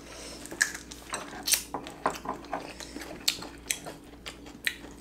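Mealtime eating sounds: chewing and mouth smacks mixed with the clicks of metal chopsticks against food and dishes. They come as a string of short, sharp clicks, two or three a second.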